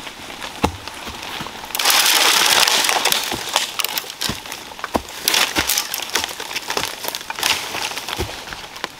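Footsteps crunching through dry bamboo leaf litter and snapping twigs, with scattered sharp cracks and a loud burst of leaf rustling about two seconds in.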